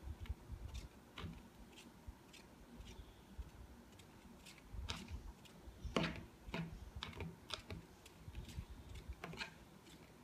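Metal spoon stirring a thick soap mixture in a plastic cup, clicking and tapping against the cup's sides in a faint, irregular run of light clicks, about two a second, with one louder knock about six seconds in.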